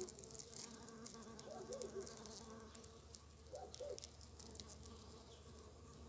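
Faint, steady buzzing hum of a bumblebee. A short low warbling sound comes twice, near the middle and again later.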